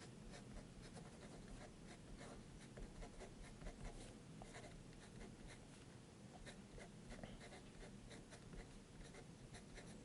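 Faber-Castell 0.7 mm mechanical pencil writing letters on paper: faint, irregular scratching strokes of the lead. The lead, sold as HB, sounds hard to the writer, who judges it closer to an H or 2H.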